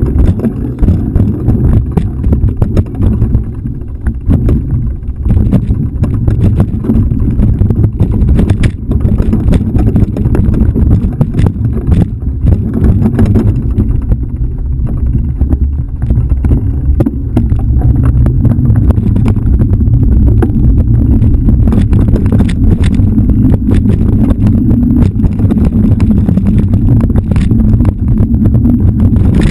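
Mountain bike riding fast over a rocky, rooty dirt trail: continuous rumbling wind buffeting on the action camera's microphone with frequent knocks and rattles as the bike clatters over rocks and roots.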